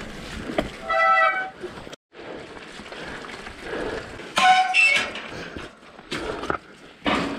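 Mountain bike ridden on a rough trail: tyre and trail noise with two short, shrill tonal squeals from the bike, the first about a second in and the second about three seconds later. The noise cuts off abruptly about two seconds in.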